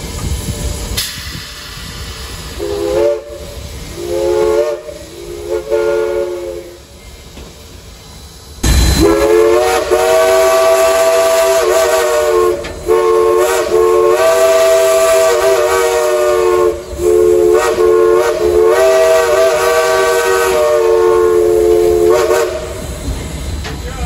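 Southern Railway 4501's steam chime whistle blown from the cab, several notes sounding together as one chord. There are three short toots, then a sudden loud rush, then long, long, short, long blasts: the pattern of the grade-crossing signal.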